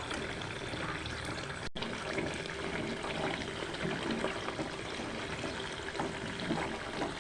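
Milk cream bubbling and sizzling in hot ghee in a kadai as the butterfat separates out into ghee: a steady, even frying noise, broken by a very short gap about two seconds in.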